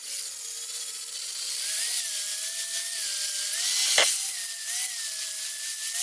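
Corded angle grinder running on a piece of steel train rail: a shrill hiss over a motor whine that rises and dips as the load changes. A single sharp knock comes about four seconds in.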